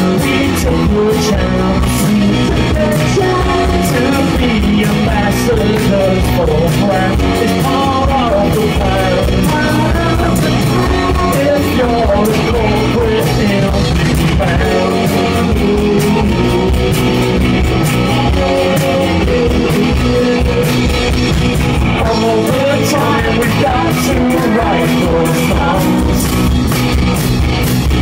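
Indie rock band playing live: a man singing lead over electric guitar, drum kit and tambourine, loud and steady throughout.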